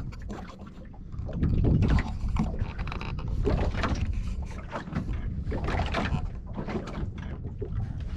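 Small boat drifting at sea: an uneven low rumble of wind on the microphone and water against the hull, with scattered knocks and splashes.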